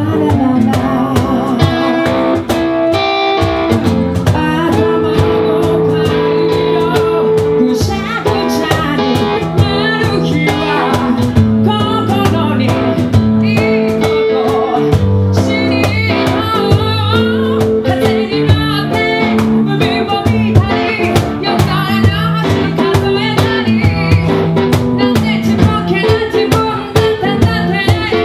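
Live acoustic band music: a woman singing into a microphone over guitar and a cajon played by hand, with steady percussive hits.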